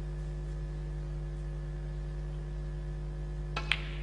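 Steady electrical hum on the recording, broken near the end by a quick, sharp double click of snooker balls as a shot is struck.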